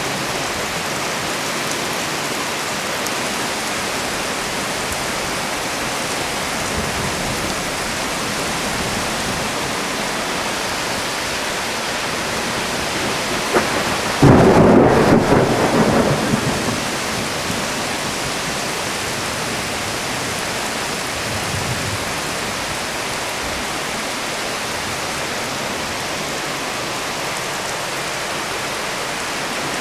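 Torrential cloudburst rain hissing steadily. About fourteen seconds in, a loud thunderclap breaks sharply and rumbles away over two or three seconds.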